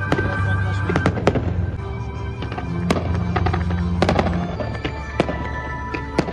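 Aerial fireworks going off: a scattered run of sharp bangs and crackles, the sharpest about a second in and around four seconds in, over music with long held notes.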